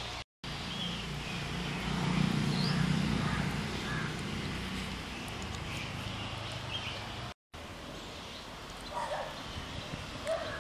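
Outdoor rural ambience: a steady background hiss with birds chirping now and then, and a low hum that swells about two seconds in and fades by four. The sound cuts out completely twice, very briefly.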